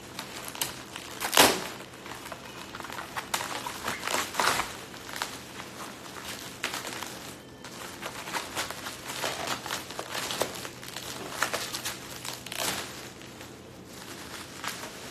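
Packaging rustling and crinkling in irregular bursts as a large item is worked out of a cardboard box, with the sharpest crackle about a second and a half in.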